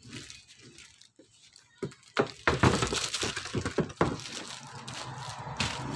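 Handling noise from a new washing machine and its packaging: plastic crackling, clicking and knocking, faint at first and dense and loud from about two seconds in.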